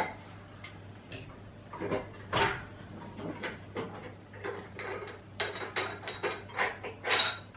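Light metallic clicks, clinks and knocks at irregular intervals from hands working on a turret milling machine's ram and turret, over a steady low hum.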